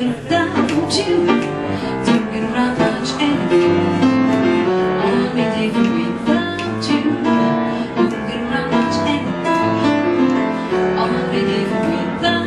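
Piano playing a song passage, with notes and chords struck one after another throughout.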